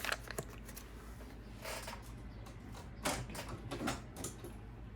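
Faint handling of a plastic-bagged replacement driveshaft package as it is opened: a few brief rustles and scrapes, about three short bursts a second or so apart, over a low steady hum.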